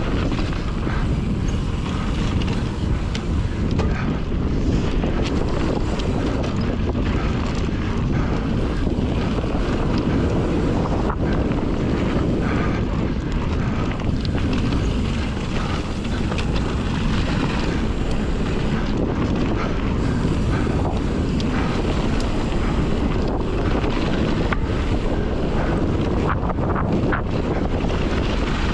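Wind buffeting the microphone of a helmet or body camera on a Fezzari La Sal Peak mountain bike rolling fast down a dirt trail, with a steady low rush of wind and tyre noise. Frequent small clicks and rattles from the bike run through it.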